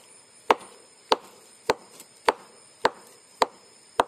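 Sugar palm (aren) flower stalk being struck in a steady rhythm, seven sharp knocks a little under two a second. This is the first beating of the stalk, done to bring on the flow of sap (nira) for tapping.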